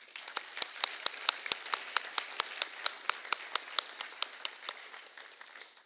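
Audience applauding, with one nearby pair of hands clapping sharply and evenly at about four to five claps a second above the rest; the applause dies away near the end.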